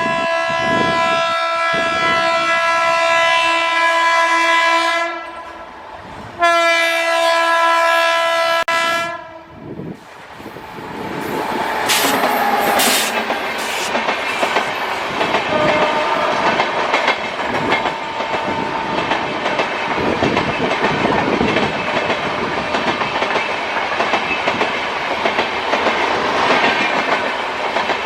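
WAP-7 electric locomotive's horn sounding two long, single-pitched blasts, the first ending about five seconds in and the second cut off about nine seconds in. The express train then passes close by, wheels clattering over the rail joints as the coaches run past.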